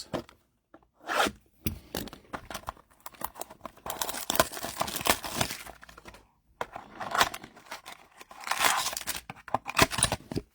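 Wrapping and packaging of a Bowman Sterling trading-card box being torn and crinkled open, in irregular rasps with small clicks, longest about four seconds in and again about eight seconds in.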